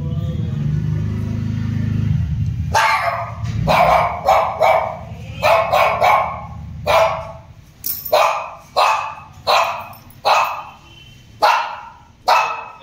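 A dog barking over and over, a bark or two each second, starting about three seconds in. Before the barking there is a loud low rumble.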